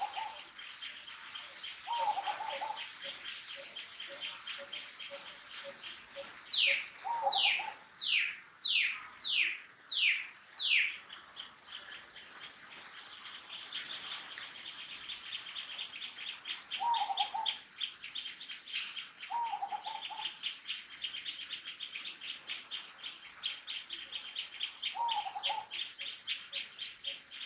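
Birds calling: one gives a run of about seven clear falling whistles, and another gives a short low call every few seconds, over a fast, high, steady chirring.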